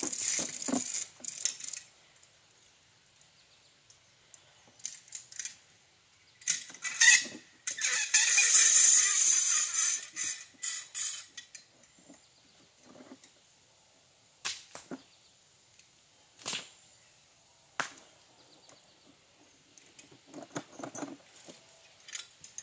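Scattered knocks and clatter of rocks and rubble being handled, with quiet gaps between. About eight seconds in comes the loudest sound, a rush of clattering noise lasting about four seconds.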